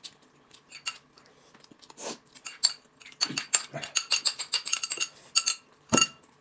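Chopsticks clinking and scraping against a small ceramic bowl in a quick run of sharp clinks in the second half, then a single knock as the bowl is set down on the table near the end.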